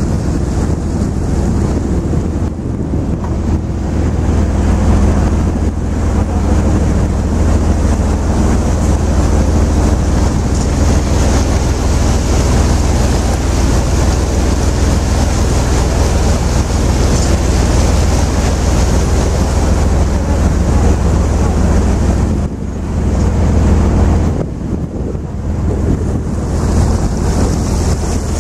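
Wind buffeting the microphone on a moving river cruise boat, over the boat's low steady engine drone and water rushing past the hull. It eases briefly twice near the end.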